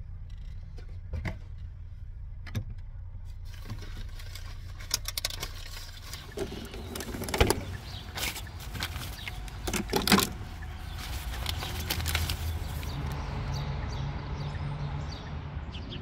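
Small plastic water bottles clattering and knocking against each other as they are packed into the bin of a car fridge, with the loudest knocks about halfway and two-thirds of the way through, over a steady low hum.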